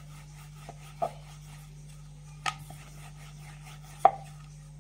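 Wooden rolling pin working dough on a round wooden rolling board: three sharp wooden knocks, about a second in, midway and near the end, the last the loudest, over a steady low hum.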